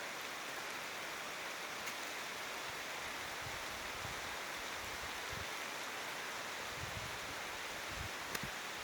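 Heavy rain falling steadily, an even hiss of big drops, with a sharp tick from a single drop near the end.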